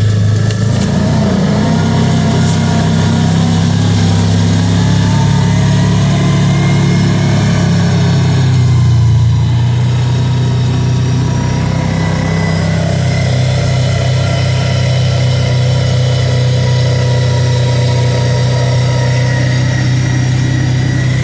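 Kawasaki Teryx side-by-side engine running while driving at a steady pace, its pitch shifting as the throttle changes about nine seconds in.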